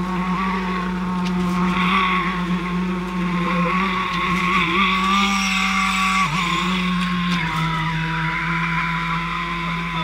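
Concrete pump and poker vibrators running as concrete is placed: a constant low machine hum under a higher whine that wavers, with a hiss of working concrete. The pitch drops a little about six seconds in and again about seven and a half seconds in.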